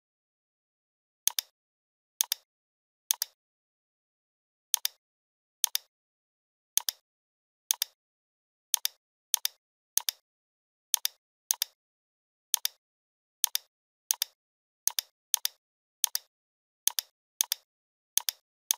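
Computer mouse clicks, about twenty at an irregular pace of roughly one a second, each a sharp press followed at once by its release, with silence between.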